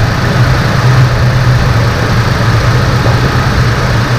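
Toyota Tacoma TRD Pro's V6 engine idling steadily, breathing through a freshly installed S&B aftermarket air intake.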